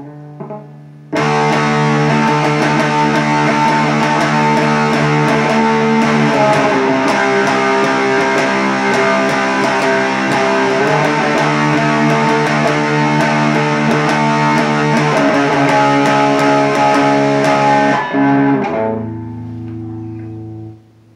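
Electric guitar played through an MXR Prime Distortion pedal set to full distortion and full tone, strumming heavily distorted sustained chords that change a few times. The playing cuts off near the end, leaving a lower note ringing out.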